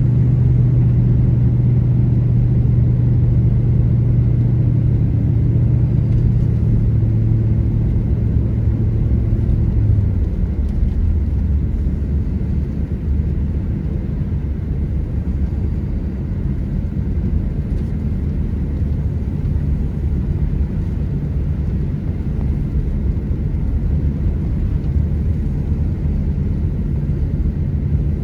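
Car engine and tyre noise on a snowy road heard from inside the cabin: a steady low hum. About ten seconds in, the engine note drops to a lower pitch and the noise eases slightly.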